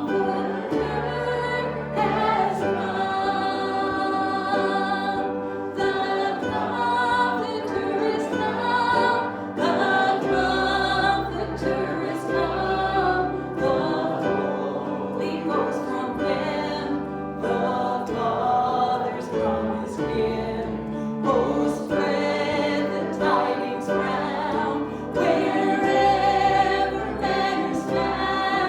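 Worship music: a group of voices singing a song together over instrumental accompaniment with held bass notes.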